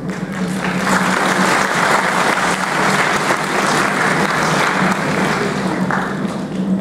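Audience applauding in a hall, swelling up within the first second and dying away near the end.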